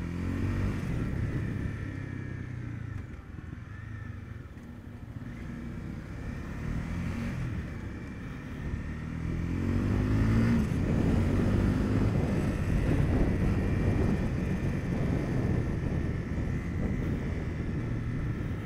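Single-cylinder engine of a Honda CB300F motorcycle riding in stop-and-go traffic, its pitch climbing several times as it pulls away and works through the gears, over wind and road noise. It gets louder about ten seconds in.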